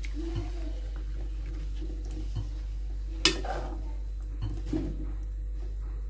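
Metal spoon stirring duck curry in its gravy in an aluminium pot, scraping and clinking against the pot, with one sharp clink a little after three seconds in. A steady low hum runs underneath.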